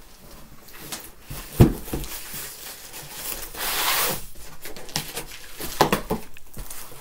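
Cardboard shipping box being opened by hand: flaps pulled back and scraping against each other. A sharp thump comes about one and a half seconds in, and a few knocks follow near the end.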